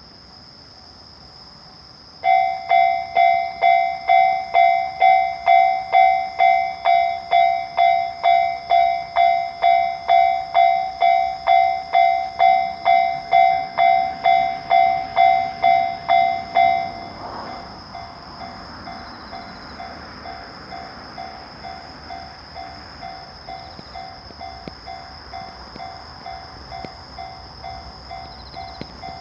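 A bell dinging about twice a second: it starts about two seconds in, rings loudly for some fifteen seconds, then goes on much softer. A faint steady high-pitched whine runs underneath.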